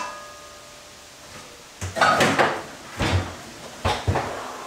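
Kitchen cupboard being opened and a metal bowl and colander being lifted out: a few sharp knocks and clatters from about two seconds in, after a quiet moment with a faint ring.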